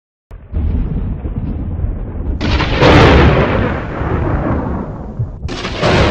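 Thunder sound effect: a low rumble starts abruptly, then two loud cracks of thunder about three seconds apart, each tailing off into rumble.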